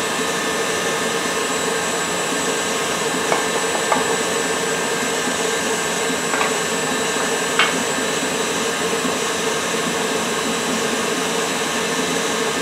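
Electric stand mixer running steadily at speed, creaming butter and sugar until light and fluffy. A few light knocks of bowls or utensils on the counter sound over it, the sharpest about two thirds of the way through.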